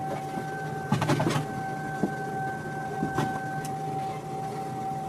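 A small electric motor whining steadily at one pitch over a low hum, with a short clatter of knocks about a second in and single knocks about two and three seconds in.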